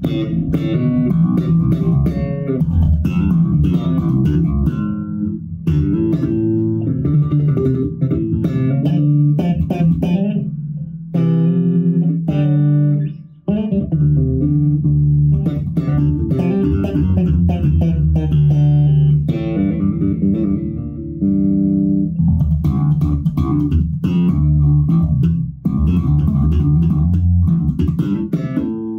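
Six-string electric bass played through an amplifier: a continuous run of plucked bass notes and lines, with a brief break about thirteen seconds in.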